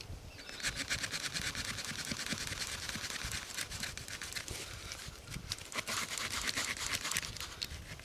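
Leatherman Surge multitool saw blade cutting through a birch log by hand, a steady run of quick back-and-forth rasping strokes.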